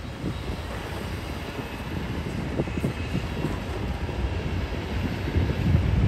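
Komatsu D61EX crawler bulldozer's diesel engine running with a low rumble, tracks clattering and rock grinding as it pushes a load of stone, getting louder over the last couple of seconds.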